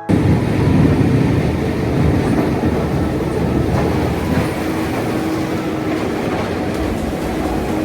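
Skid steer loader working: a steady, loud rumbling engine and clattering machine noise that starts abruptly, with a faint whine joining in for a couple of seconds past the middle.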